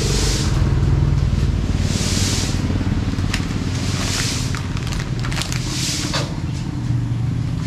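A motor vehicle's engine running steadily, heard from on board, with a hissing swish that comes back about every two seconds and a few light clicks.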